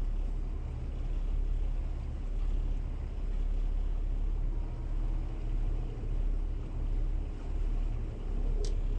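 Twin diesel engines of a Bayliner 4788 motor yacht running at low speed, a steady low rumble, with a short high chirp near the end.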